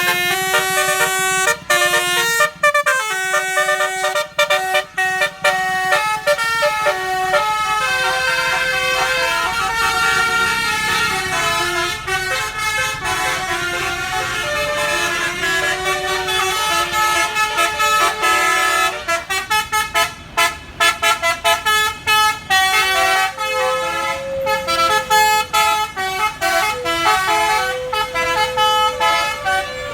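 Bus basuri horn, a multi-tone melodic horn, playing a tune: held notes that step up and down in pitch, cut by short breaks between notes.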